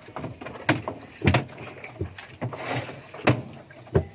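Panasonic 8 kg washing machine drum being rocked side to side to work it loose from its shaft, giving about five irregular clunks and knocks with rattling in between.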